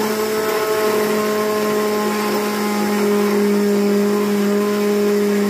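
Maharaja Whiteline electric mixer grinder running, grinding a jar packed with Marie biscuits into powder: a loud, steady motor whine.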